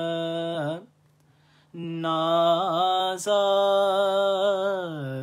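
A man singing an Urdu naat unaccompanied in classical style. A held phrase ends just under a second in, and after a short breath he sings one long, slowly ornamented note that sinks in pitch near the end.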